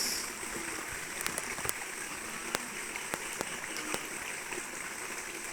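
Waterfall rushing: a steady hiss of falling water, with a few sharp clicks over it.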